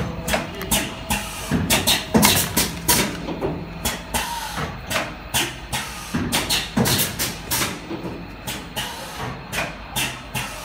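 PVC ampoule strip filling and sealing machine running, its stations clacking in an uneven rhythm of about two knocks a second over a steady low hum.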